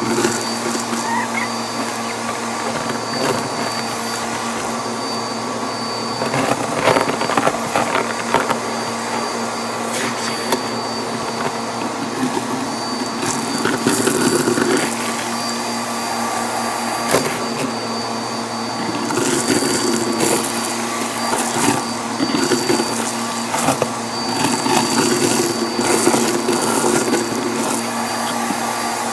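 Vacuum cleaner running steadily with a high whine, its hose and crevice tool sucking dust and debris out of a clear plastic dust bin. The debris crackles and rattles irregularly as it is drawn up the hose, louder in spells.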